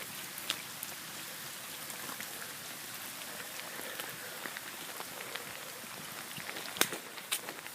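Heavy rain falling steadily, with a few sharp taps near the end.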